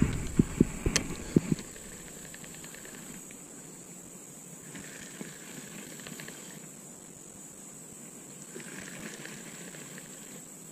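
Several low knocks and thumps in the first second and a half, from the rod and tackle being handled in a plastic kayak. Then a faint steady outdoor hiss that swells a little now and then.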